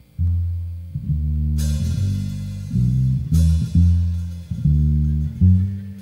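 A live rock and roll band starts a song with an upright bass playing a line of low plucked notes alone. The drum kit comes in about a second and a half in.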